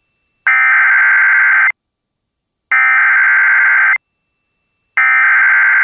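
Emergency Alert System SAME header: three identical bursts of buzzy, warbling two-tone digital data, each about a second long with about a second of silence between them. The bursts encode the alert's header, here marking the start of a flash flood warning.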